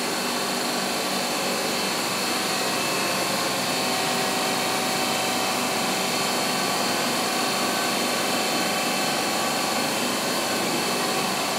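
Steady machine noise from equipment running in the room: an even hiss and hum with several fixed tones, a high whine among them, unchanging and without pulses or knocks.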